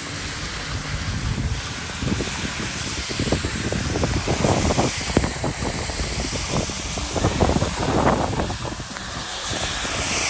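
Wind and heavy rain rushing over the microphone of a phone on a moving bicycle: a steady hiss, with irregular crackles and knocks from about two seconds in until near the end.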